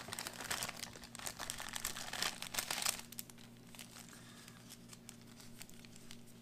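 Thin clear plastic bag crinkling as it is opened and emptied by hand, busiest in the first three seconds. After that come lighter rustles of paper-and-foil towelette and first-aid wipe packets being handled.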